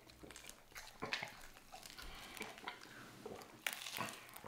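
Close-miked eating sounds: a bite into a sauce-dipped grilled cheeseburger and chewing, a run of wet smacks and crackles, loudest a little after a second in and near the end.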